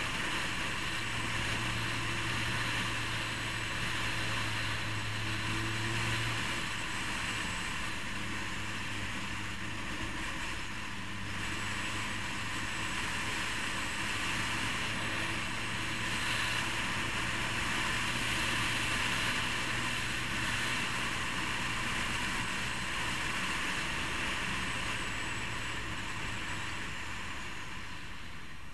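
Motorcycle engine running steadily while riding along a road, under a continuous rush of wind and road noise.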